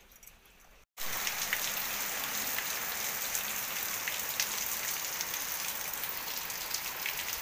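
Heavy rain falling on a wet concrete courtyard: a steady hiss with scattered sharp drips and splashes. It begins abruptly about a second in, after a moment of faint quiet.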